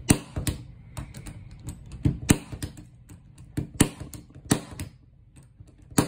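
Fluke D914 impact punch-down tool firing as it seats and trims CAT6 wires into the terminals of a network jack: sharp pops in quick pairs, two shots on each wire, about four pairs in all.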